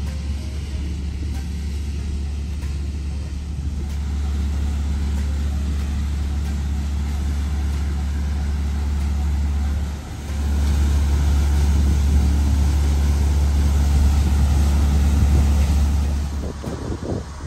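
Engine of a spray vehicle running with a steady low drone as it passes along the path trailing its spray. The drone dips briefly about halfway, is louder for the next several seconds, then falls away near the end.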